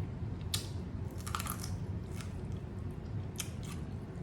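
Close-miked chewing of a homemade ground-turkey street taco: a handful of wet, crisp mouth smacks and crunches at irregular intervals, over a steady low hum.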